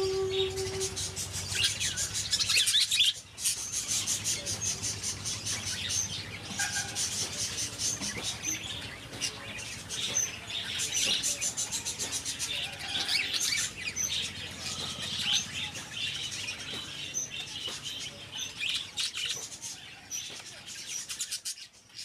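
Bird chicks chirping: many rapid, high-pitched peeps overlapping almost without pause.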